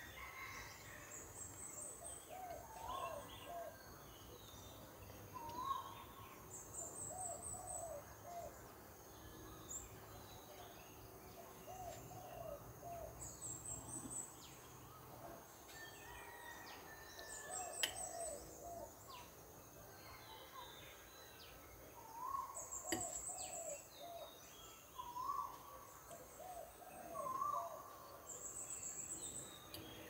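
Several birds calling at once: a short whistled phrase repeated over and over lower down, other short rising whistles, and high thin trills every few seconds. Two sharp clicks stand out, one a little past halfway and another a few seconds later.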